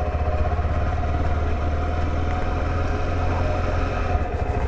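2022 KTM 390 Adventure's single-cylinder engine running steadily as the bike rolls along at low speed.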